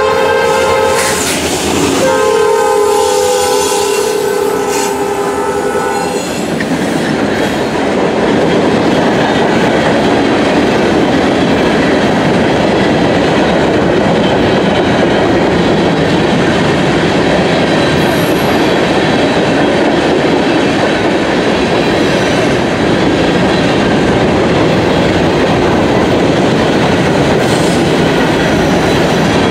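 A diesel locomotive's multi-chime air horn sounds a chord. Its pitch drops as the locomotive passes, about a second and a half in, and the horn stops about six seconds in. After that the train's cars roll past with a steady rumble and clatter of wheels on rail.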